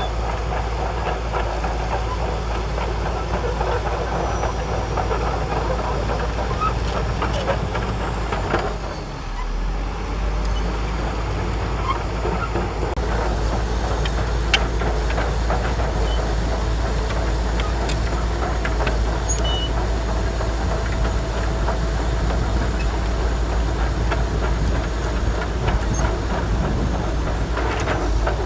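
Shantui DH17C2 crawler bulldozer working: its diesel engine running with a deep, steady rumble under a constant clatter of steel tracks, with a brief dip about nine seconds in.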